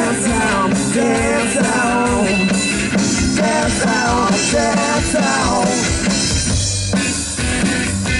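Live rock band playing: a man sings over electric bass, guitar and drum kit. The singing stops about two-thirds of the way through, leaving the band playing on.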